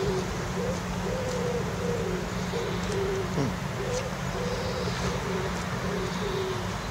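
Pigeons cooing in a low, wavering, repeated call, over a steady low hum in the background.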